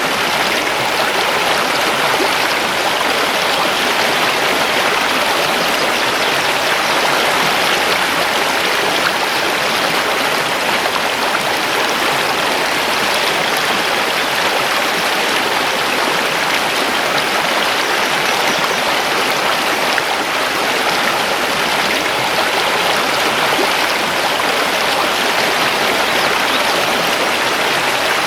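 Mountain river rushing steadily over stones, an even, unbroken rush of water.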